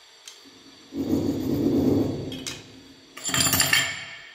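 A screwdriver turning the screws of a chrome toothbrush-holder base plate against a tiled wall: two rough scraping, grinding stretches with a sharp metallic click between them.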